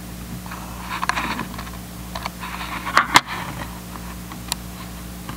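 Scattered clicks and light rattling from a laptop's keyboard and mouse as a drawing is zoomed and scrolled, with one sharp click about three seconds in. A steady low electrical hum runs underneath.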